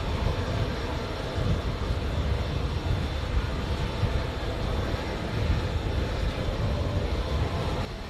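Steady drone of a parked C-17 Globemaster III jet transport's turbines running on the flight line, with a few faint steady whining tones over an uneven low rumble. The level drops slightly just before the end.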